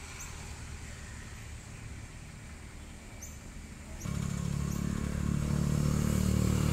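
Field Marshal 5/6 hp single-cylinder, water-cooled diesel engine, a Lister CS-type, running steadily at its slow governed speed of about 650 rpm. The low running sound becomes abruptly louder about four seconds in.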